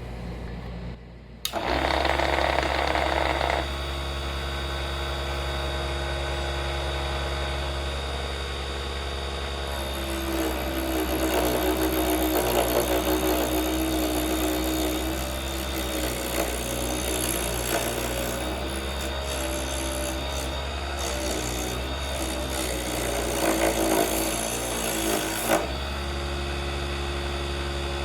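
Vevor HS001 mini wood lathe's motor running with a steady hum while a turning tool scrapes into a spinning Osage orange branch. The cutting comes in spells: a harsh burst about two seconds in, a longer stretch from about ten to fifteen seconds, and again near the end.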